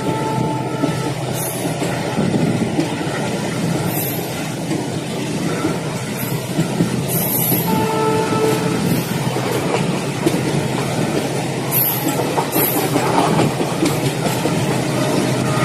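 Passenger train running at speed, heard from on board: a steady noise of the wheels on the rails and the moving coach.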